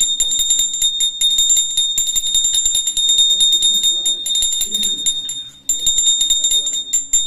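A puja bell rung rapidly and continuously, giving a high ringing tone struck many times a second. It stops briefly about five and a half seconds in, then starts again, with faint voices underneath.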